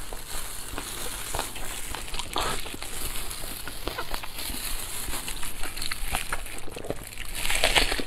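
Close-up eating sounds: wet chewing and lip-smacking on sticky braised pork knuckle, with many small clicks as gloved hands pull the meat apart. A louder bite comes near the end.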